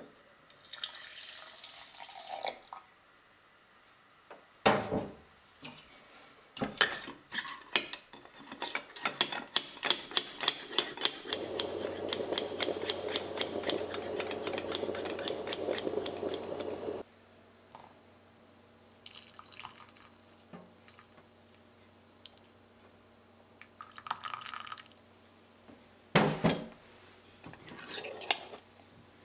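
Milk poured into a glass milk frother, then a few seconds of rapid clicking, rattling strokes. A stovetop moka pot then sputters steadily with a fast crackle for about six seconds, stopping abruptly. Near the end, a few knocks and clinks of a ceramic mug set down on a steel drainer.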